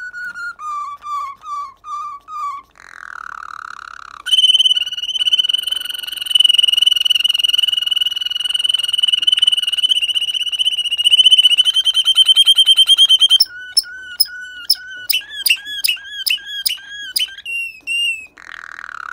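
Waterslager canary singing: a string of short repeated whistled notes and a brief buzzy phrase, then a long, even, rolling trill held for about nine seconds, ending in a run of quick, clipped rising notes.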